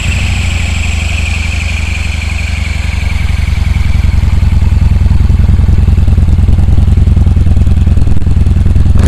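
Yamaha Bolt's 942 cc air-cooled V-twin, fitted with a Kuryakyn air filter, idling steadily just after being started, an even low rumble that grows slowly louder. A faint high whine fades out over the first few seconds.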